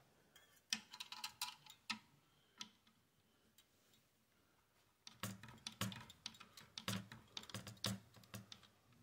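Faint clicks and small metal taps from a screwdriver turning the CPU tower cooler's mounting screws while the heatsink is handled, in two bunches with a quiet pause of about two seconds in the middle.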